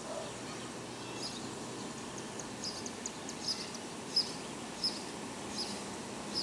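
Outdoor background noise, steady, with a run of short high chirps from about halfway through, roughly one every three-quarters of a second.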